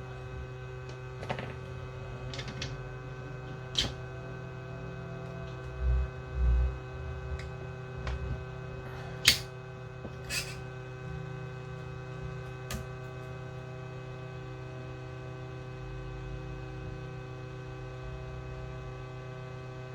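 Steady electrical hum of bench equipment, with a few sharp clicks of small tools against the phone and a couple of soft low thumps around six seconds in.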